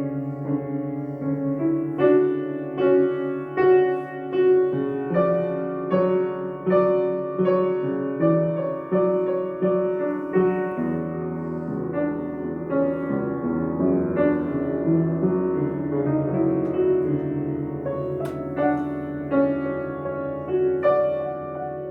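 Solo piano playing a slow improvisation: single notes struck one after another and left to ring over a held low bass note.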